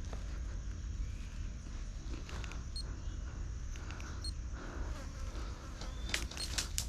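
Quiet outdoor background: a steady low rumble with scattered faint clicks, and a few sharper clicks near the end.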